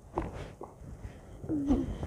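Short faint cracks of spinal joints under a chiropractic adjustment, two clicks early on, then a brief low voice sound near the end.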